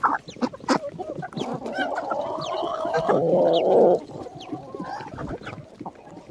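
A flock of backyard hens clucking while feeding, with one long drawn-out hen call from about a second and a half in to about four seconds in, loudest near its end. Short taps of beaks pecking scraps off the ground run throughout.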